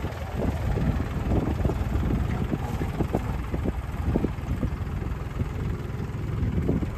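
Tractor engine running steadily during mung bean sowing, with wind rumbling on the microphone.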